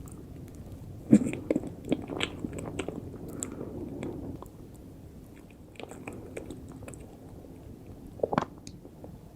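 A person biting and chewing profiteroles, with a cluster of sharp mouth clicks a little over a second in and another louder one near the end.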